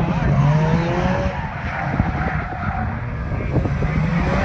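Car engine revving hard in repeated rising pulls as the car drifts, with tyres skidding on the tarmac. Wind buffets the microphone throughout.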